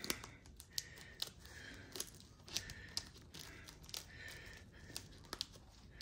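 Faint scratching and rustling with scattered sharp little clicks as a stiff AXL Velcro loop adapter tab is pushed and worked through the hook-and-loop Velcro of a chest rig placard.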